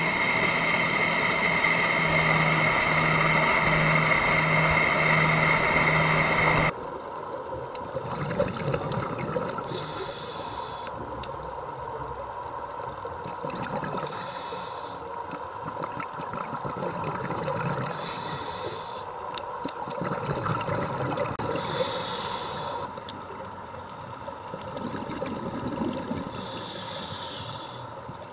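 A boat's engine runs steadily for about the first seven seconds. The sound then cuts to underwater, where a scuba diver's exhaled bubbles rush out about every four seconds.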